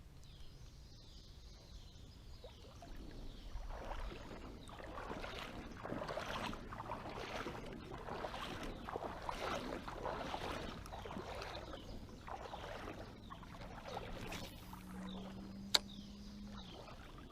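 Irregular sloshing and swishing of creek water from movement through the shallows, louder through the middle. A single sharp click comes near the end.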